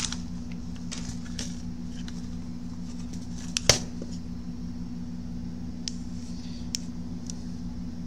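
Steady low electrical hum of workbench equipment, with a few light clicks and one sharper click a little under four seconds in as a laptop motherboard is picked up and set down on the bench.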